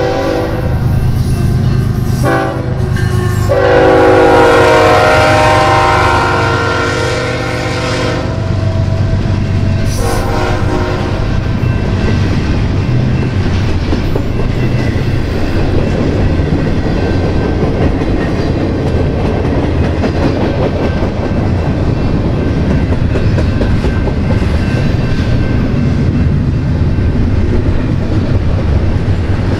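BNSF freight locomotive's air horn sounding for the grade crossing in long blasts, briefly broken about two seconds in, loudest around four to seven seconds and ending about ten seconds in. Then a steady rumble and clatter of a double-stack intermodal train's wheels and well cars rolling past, over a low engine drone.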